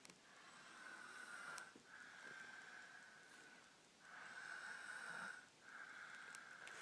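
Soft snoring: four slow breaths in two in-and-out pairs, each carrying a thin, high, steady whistle.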